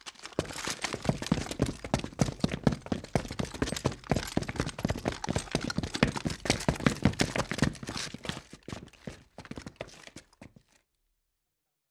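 Sped-up handling and footstep noise from pitching a backpacking tent on a concrete floor: a rapid, dense clatter of clicks and knocks that stops about eleven seconds in.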